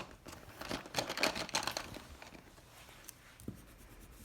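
Pencil strokes scratching on paper while sketching, a quick run of short strokes in the first couple of seconds, then fewer and fainter ones.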